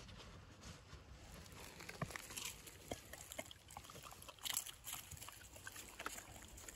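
Footsteps and dog paws on a leaf-covered path: faint, irregular rustling and crunching of dry leaves, a little louder about two-thirds of the way through.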